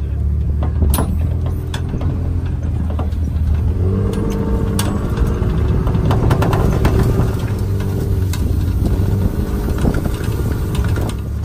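A truck's engine running steadily under light load as it tows a rolling buggy chassis on a strap over grass, with a constant low rumble and occasional knocks from the bumpy ride.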